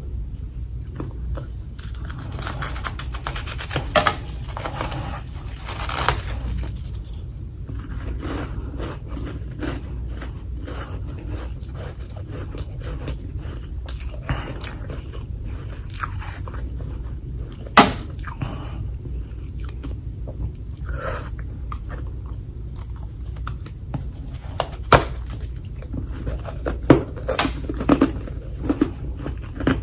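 Close-up crunching and chewing of humidifier freezer frost chunks, a dense crackle broken by several sharp, loud bites.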